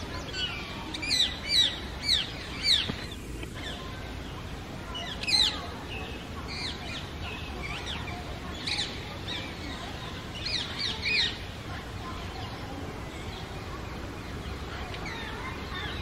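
Rose-ringed parakeets calling: short, sharp, downward-sweeping chirps in quick runs of three or four. The loudest run comes about a second or two in, and further runs follow at intervals.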